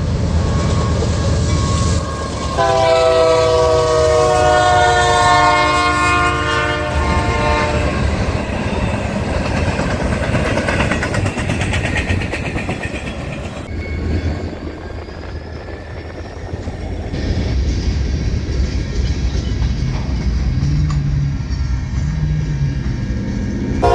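A locomotive horn sounds one long chord of several tones a few seconds in, over the steady rumble and wheel clatter of a freight train rolling past. The rumble eases off for a few seconds past the middle, then comes back up.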